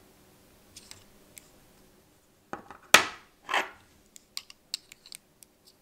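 A small metal part being handled against a steel digital caliper: a sharp click about three seconds in, a short slide of the caliper jaw, then a string of light ticks as the jaws are set against the part.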